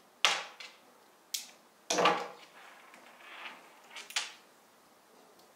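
A handful of sharp knocks and clatters, as objects are handled and set down, the loudest near the start and about two seconds in.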